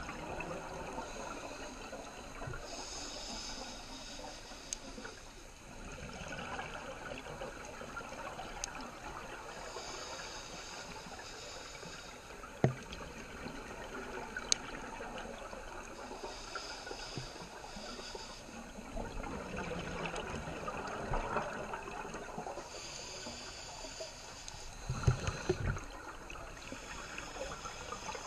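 Scuba regulator breathing heard underwater: a bubbling, watery rush with a hiss that comes back in a slow cycle about every six to seven seconds. A few sharp clicks, one short cluster near the end.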